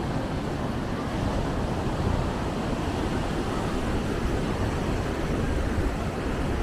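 Steady outdoor background noise, a dense low rumble with hiss above, with no distinct events.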